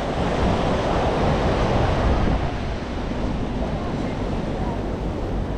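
Sea waves washing onto the shore, a surge of surf that is loudest in the first couple of seconds and then settles into a steady wash, with wind rumbling on the microphone.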